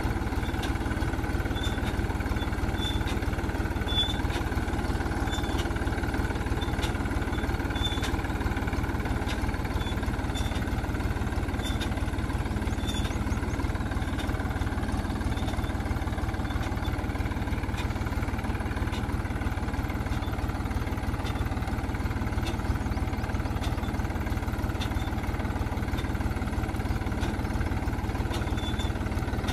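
Tractor engine running steadily while it pulls a plastic-mulch-laying implement along a field bed, with faint, regular ticking about once a second.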